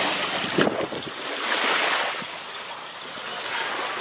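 Waves washing onto a sandy beach, a steady hiss of surf that swells and ebbs twice.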